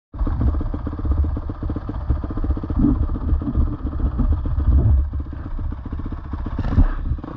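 A small off-road engine idling close by, its firing steady but its loudness rising and falling unevenly.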